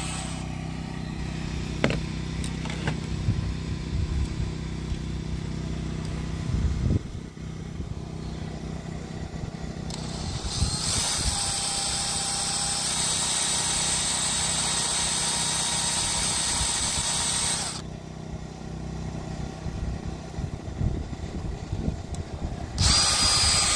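DeWalt DCD708 cordless drill running steadily for several seconds from about halfway through, then starting again near the end, drilling out stuck welding wire. A steady engine hum runs underneath the whole time.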